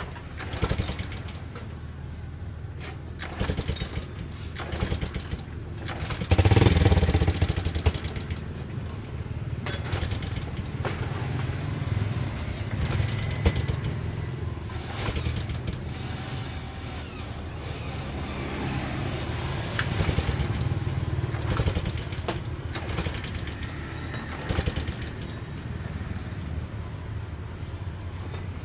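Small horizontal single-cylinder step-through motorcycle engine running on butane gas fed from a camping-gas canister, ticking over with a rapid low beat. It revs up sharply about six to seven seconds in, and picks up speed again a couple of times later.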